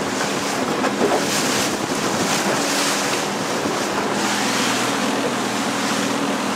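A small boat's motor running steadily under way, with water rushing past the hull and wind buffeting the microphone.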